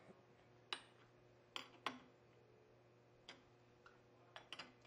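Open-end wrench clicking against the nuts and bolts of a circulator pump's flanges as they are snugged down: a handful of sharp metallic clicks, spaced unevenly.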